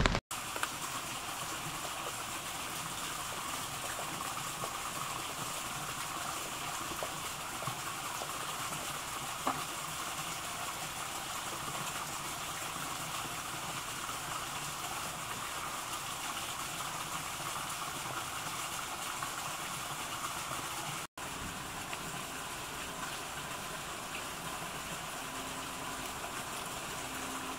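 Steady rushing noise of falling water, dropping out for a moment about 21 seconds in.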